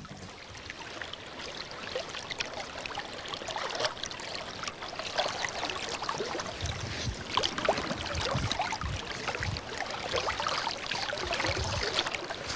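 A shallow river running over rocks, a steady rush of water with many small splashing and gurgling sounds.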